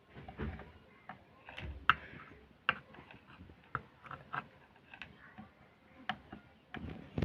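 Irregular light clicks and taps of a soldering iron and tools on a circuit board while the solder pads for an amplifier IC are cleaned.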